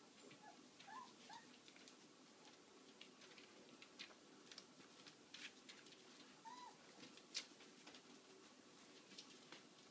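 Faint dog whimpers: a few short, squeaky cries that rise and fall in pitch, mostly in the first second or so and once more later on. Light clicks and taps run through it, with one sharper tap later on.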